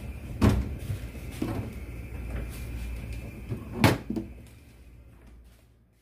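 A few knocks and thumps, the loudest nearly four seconds in, over a low steady hum; everything fades away near the end.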